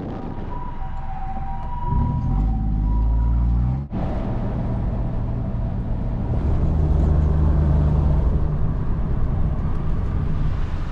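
Engine and road noise of a small van driven at speed, heard from inside the cab. The engine drone gets louder about two seconds in, cuts out briefly just before four seconds, and swells again from about six and a half seconds.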